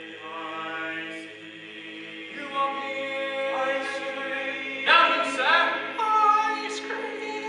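Male barbershop quartet singing held close-harmony chords a cappella, the voices entering one after another and building the chord, with the loudest swell about five seconds in.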